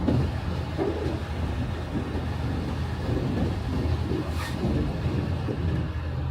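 Heavy farm harvesting machinery running steadily with a low rumble, and a single sharp click about four and a half seconds in.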